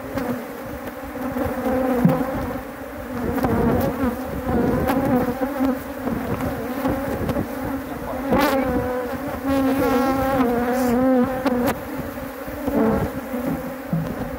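Loud, wavering buzz of a swarm of agitated, defensive honeybees as they are shaken from a capture box into a standard hive body. A few sharp knocks from the wooden hive boxes being handled.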